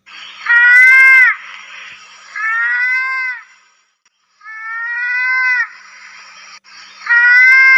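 Mouse-deer (kancil) calling: four loud, cry-like calls, each just under a second long, holding pitch and then dropping at the end, spaced one to two seconds apart over a steady high hiss.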